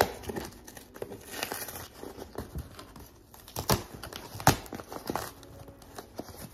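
Packing tape being picked at with fingernails and peeled off a cardboard shipping box: irregular scratches and short ripping sounds, with a knock on the box right at the start.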